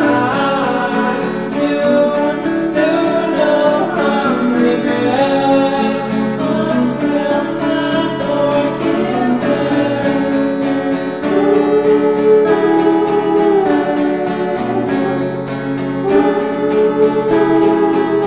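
A song: a voice singing a sustained melody over guitar accompaniment.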